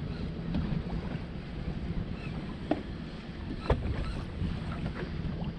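Wind buffeting an action camera's microphone over a boat on open water, with water lapping at the hull. A few short sharp clicks and knocks sound through it, the loudest about two-thirds of the way in.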